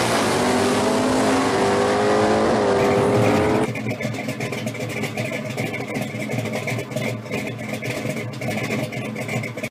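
1969 Camaro pro street drag car's V8 accelerating hard down the strip, its revs rising and dropping at two gear changes. About four seconds in it cuts off abruptly to a quieter hiss with scattered crackles.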